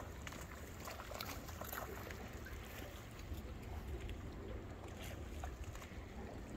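Water lapping and slapping against a small fishing boat, with scattered small splashes, over a steady low rumble of wind on the microphone.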